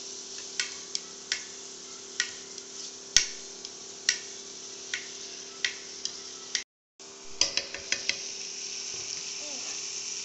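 Chopped tomatoes, onions and green chillies sizzling in oil in a pan while a spatula stirs them, knocking against the pan about once a second; the loudest knock comes about three seconds in. The sound cuts out briefly at about six and a half seconds, then a quick run of knocks follows.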